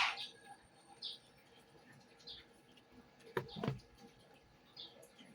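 A DeWalt demolition hammer cuts off at the start, leaving a lull with faint short bird chirps about once a second and a brief knock about three and a half seconds in.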